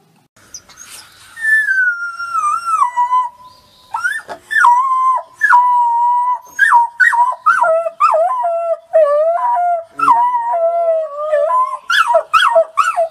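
Wolf pups howling. A long howl slides down and levels off, then comes a run of shorter howls that break and jump in pitch. From about halfway in, two pups howl over each other.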